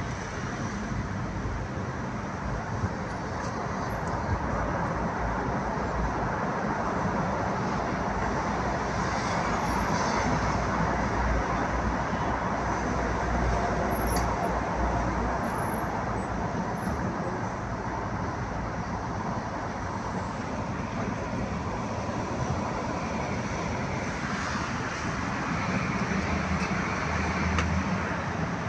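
Steady vehicle and road traffic noise with a low rumble, heard from inside a car cabin, growing a little louder midway and again near the end.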